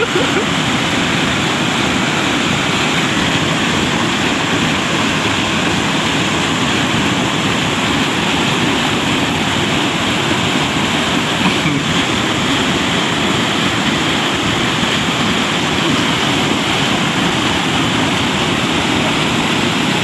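Steady rush of river water tumbling over boulders into a rocky pool.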